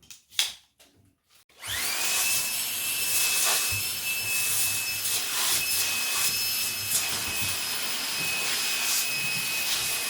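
A few light clicks, then a Dreame V11 cordless stick vacuum is switched on about two seconds in. Its high-speed motor spins up to a steady high whine while the nozzle rubs and sucks over sofa upholstery.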